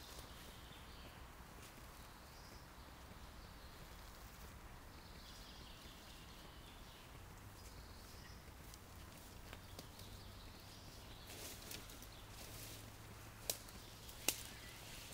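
Quiet spring woodland ambience with faint birdsong in the distance. Someone shuffles and rustles about near the end, with two sharp clicks about a second apart.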